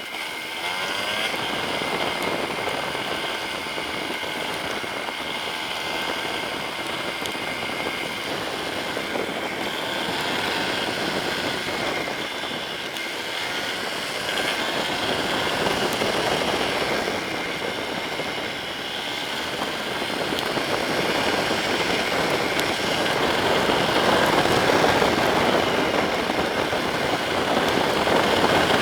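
Yamaha Serow 250's air-cooled single-cylinder engine running as the bike is ridden, its revs rising and falling, under a steady rush of wind and road noise that grows a little louder near the end.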